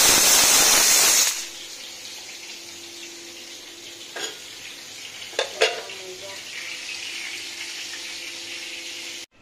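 Halved green gourds frying in hot oil in an iron wok: a loud sizzle for about the first second, then a quieter, steady sizzle. A few clinks of metal utensils come around the middle.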